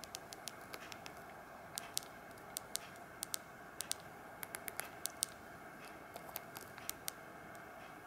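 Sony Ericsson J110i mobile phone's keypad buttons being pressed: a run of quick, irregular clicks, some in close pairs, with no key tones.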